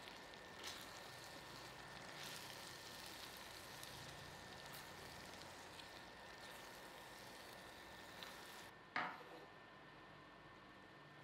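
Coconut-milk lodeh sauce with fettuccine, prawns and vegetables sizzling gently in a pan while a silicone spatula stirs it, with a few soft clicks and a faint steady high tone underneath. About nine seconds in comes a single sharp knock of a knife on a wooden cutting board.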